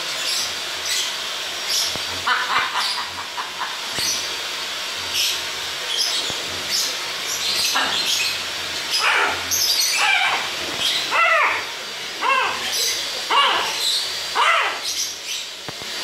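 A macaw on its perch makes a run of short, sharp clicks and scratches. From about halfway in, it gives a string of short warbling calls that rise and fall in pitch.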